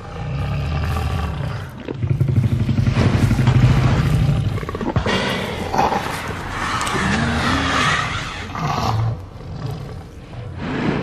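Tyrannosaurus rex roar sound effect from the Jurassic Park films. A long, deep rumbling roar gives way about halfway through to higher, wavering screeching cries over the rumble, and it dies away at the end.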